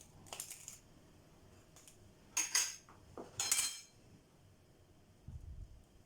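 Half a red onion rasped against a fine metal grater in three separate strokes, the second and third the loudest, about a second apart. A soft low thump comes near the end.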